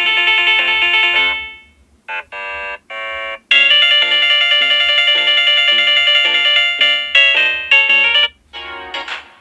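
Samsung Galaxy Note 8 stock ringtone melodies playing: bright electronic chime-like notes. A phrase fades out about a second and a half in, a few short notes follow, then a longer melodic phrase, and another run of notes starts near the end.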